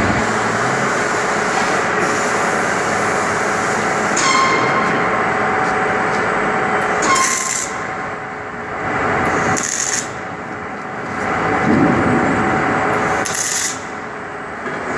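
Arc welding on steel plate during tack welding: a steady crackling hiss that breaks off briefly three times as the welder stops and starts again.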